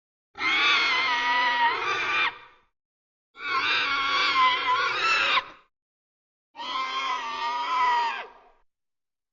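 Geosternbergia pterosaur film sound effect: three harsh, screeching calls, each about two seconds long with a wavering pitch, separated by short silences.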